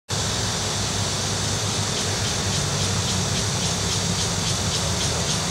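Steady outdoor background noise: a low hum under a high hiss that begins to pulse about three times a second around two seconds in.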